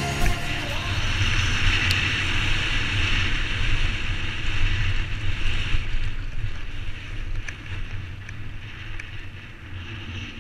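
Wind rushing over a helmet-mounted camera and the tyres of a downhill mountain bike rolling fast over a dry dirt trail, with a few light clicks from the bike. The noise dies down over the last few seconds as the bike rolls out onto flat ground.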